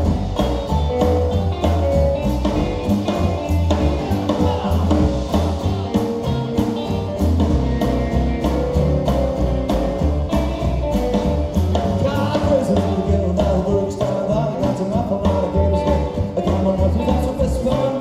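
Rockabilly band playing live: upright double bass, electric hollow-body guitars and drums, with a male lead singer.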